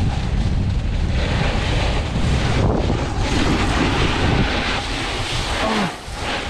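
Wind rushing over a camera microphone together with a snowboard sliding and scraping over snow at speed, a steady noise with a heavy low rumble that eases a little near the end.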